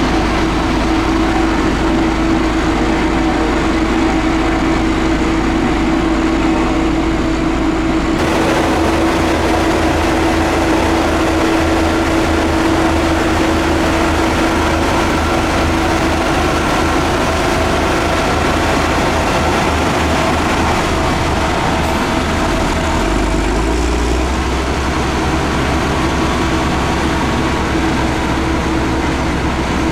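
Heavy road-construction machinery running, its engines making a loud, continuous mechanical noise with a steady droning tone. The sound shifts abruptly about eight seconds in.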